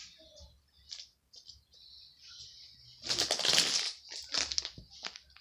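Handling noises from toys being moved about: faint rustles and taps, a louder rustle about three seconds in, then a few quick clicks.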